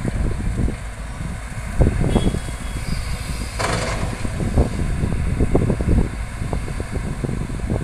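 Caterpillar hydraulic excavators' diesel engines running at an earth-loading site, heard as an uneven low rumble with wind buffeting the microphone. About three and a half seconds in, a brief noisy rush stands out.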